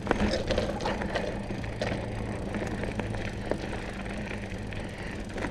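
Hardtail mountain bike rolling over rough, rutted dirt on WTB Trail Boss tyres: a steady rumble of tyres on the ground, with scattered clicks and knocks from the bike rattling over bumps.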